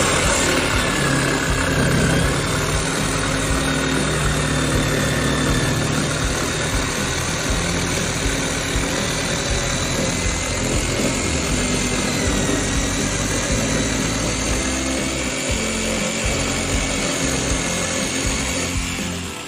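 Parkside PFS 710 D3 electric jigsaw running continuously, its motor whine wavering slightly in pitch.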